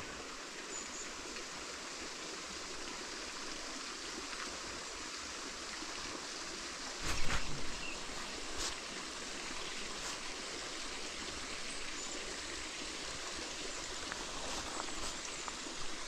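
Steady rush of river water flowing, with a brief bump about seven seconds in.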